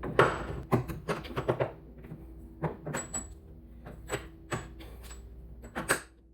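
Irregular metallic clicks and knocks of hand tools and metal parts while a Mazda Miata's front coilover is being fitted, a quick run of clicks in the first second and a half, then single ones spaced out, some with a short metallic ring.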